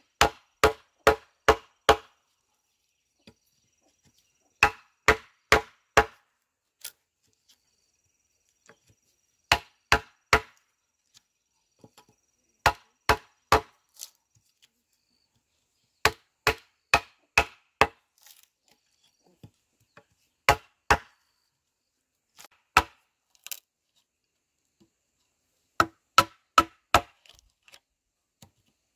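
A blade chopping on wood: sharp, ringing strokes in bursts of two to five, about 0.4 s apart, with pauses of a few seconds between bursts.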